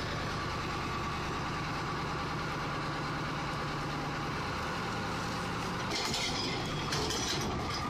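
Engine of a small tractor-type log-handling machine running steadily at a constant pitch, with a rougher, hissier layer joining about six seconds in.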